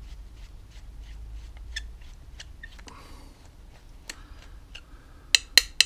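Screwdriver working the main jet out of a lawnmower carburettor: faint, evenly spaced small clicks, then three sharp metal clicks in quick succession near the end.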